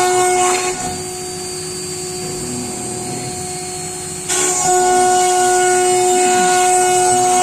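CNC router spindle cutting wood, a loud steady high-pitched whine with a hiss of cutting noise. About a second in it drops quieter and thinner, and a little after four seconds it jumps back to full loudness.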